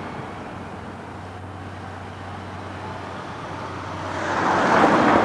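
A road vehicle passing, its noise swelling about four seconds in, over a steady background hiss with a low hum.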